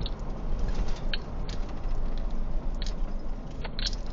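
Road and engine noise in a moving car's cabin, a steady low rumble, with a few short ticks and rattles scattered irregularly through it.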